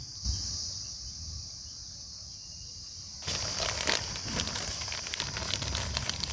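Newspaper and banana leaf crinkling and rustling as a food parcel is folded by hand, starting about three seconds in as a dense run of small crackles. Under it runs a steady high-pitched drone.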